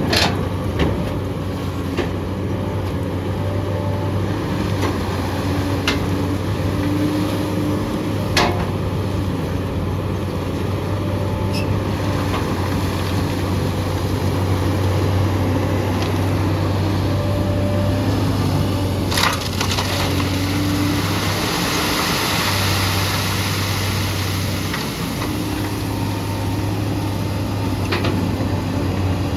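SANY SY215 excavator's diesel engine running steadily while its bucket digs and moves gravel, with stones crunching and grinding. Three sharp clanks of rock or steel stand out: at the start, about eight seconds in, and about nineteen seconds in. A louder hiss of sliding gravel follows a little after twenty seconds.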